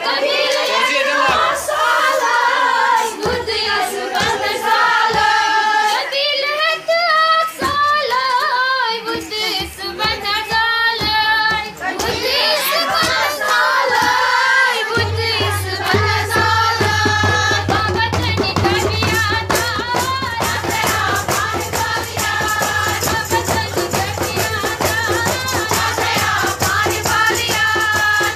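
A woman singing a Kashmiri folk song. Her voice is alone for the first half. About halfway through, rhythmic clapping and a steady low hum join and carry on under the singing.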